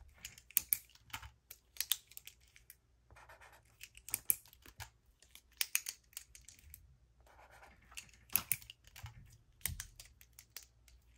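Scattered sharp plastic clicks and taps as Zebra Clickart retractable marker pens are clicked and handled, with a few short stretches of the felt tip scratching across paper between them.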